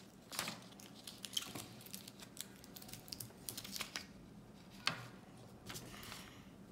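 Scissors snipping as excess paper is trimmed, with scattered paper rustles and crinkles from handling; one sharper click about five seconds in.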